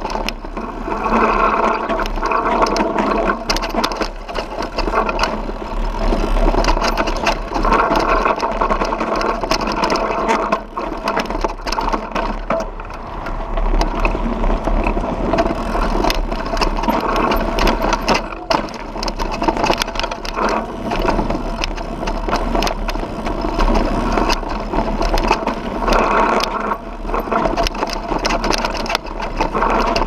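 A mountain bike rattling and clattering down a rough, rocky dirt trail, heard through a mounted action camera: a dense run of knocks, with a rapid mechanical buzz that swells and fades and a steady low rumble underneath.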